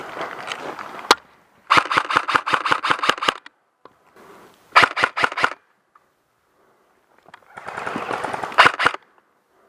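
Airsoft rifle firing full-auto bursts: a rapid run of shots lasting about a second and a half, then a short burst of about five shots, and a few more shots near the end over rustling.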